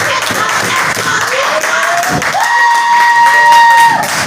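Wrestling crowd noise and cheering, with a long, loud, high held note rising in just after a second and sustained for about a second and a half near the end.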